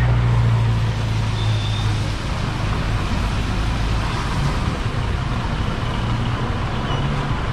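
Busy city street traffic: a vehicle engine running close by for about the first two seconds, then a steady mix of traffic noise with a couple of brief faint high tones.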